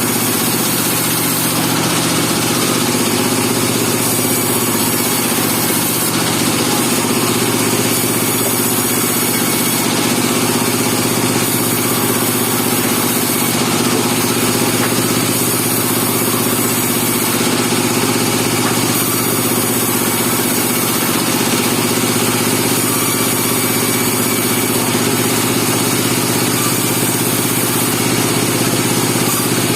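Portable band sawmill running steadily: an engine drone with a constant high hiss over it, unbroken throughout.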